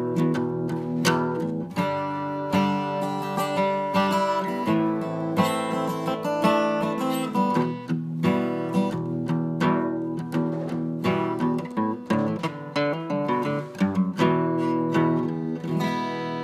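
Background music: acoustic guitar, plucked and strummed, with a steady rhythm.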